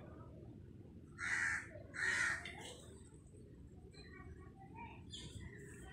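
A crow cawing twice, two harsh caws a little under a second apart, followed by a few faint scattered chirps.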